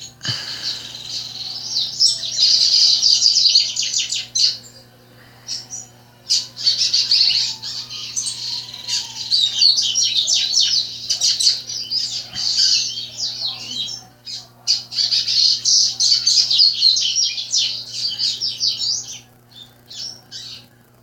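Caged songbirds singing in long, fast, high twittering phrases, in three bouts with short pauses between.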